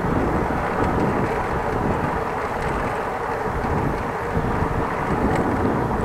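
Steady wind rumble on the microphone mixed with bicycle tyre and road noise while riding.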